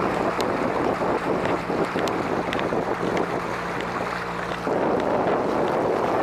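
Motor of a tour boat running steadily under way, a low hum under a rush of wind and water noise, with wind buffeting the microphone. The wind noise eases briefly about four seconds in.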